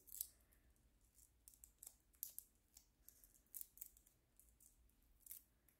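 Faint, scattered crisp ticks and rustles of a small paper cut-out and adhesive tape being handled by fingers.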